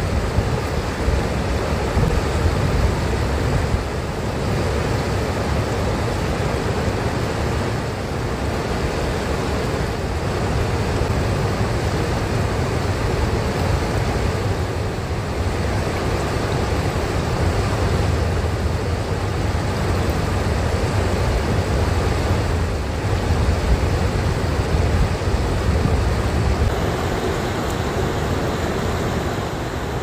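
Fast-flowing river rushing steadily over rocks and rapids, with a low rumble of wind on the microphone.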